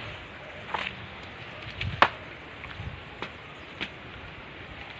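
Rustling with scattered sharp knocks, about six of them, the loudest about two seconds in, from someone moving through low undergrowth.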